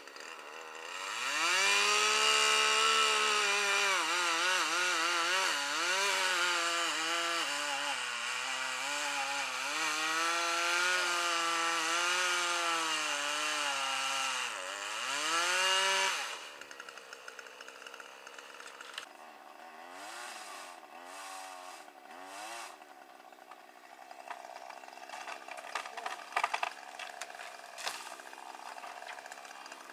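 Chainsaw revved up to full throttle about a second in, running high with a wavering pitch as it cuts into the wood. At about sixteen seconds the revs drop and it goes much quieter, with a few sharp clicks near the end.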